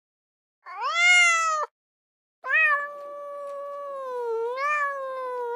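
A domestic cat meowing: one short meow about a second long, then after a brief pause a long drawn-out meow that sags in pitch and swells back up near the end.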